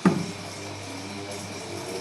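LG top-load washing machine starting up: a sharp clunk, then a steady low hum as the motor runs, with a whine that slowly rises in pitch as it gathers speed.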